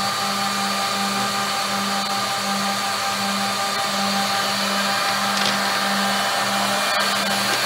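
Brandt Ambition 1650CF edgebanding machine running: a steady motor whine and hiss, with a low hum that swells and fades about once or twice a second.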